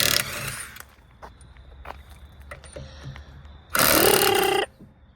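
A power tool run in two short bursts, about a second each: one right at the start and a louder one near the end.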